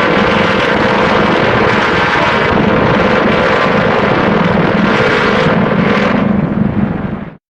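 Film sound effect: a loud, steady rushing drone with a low hum underneath, fading out near the end.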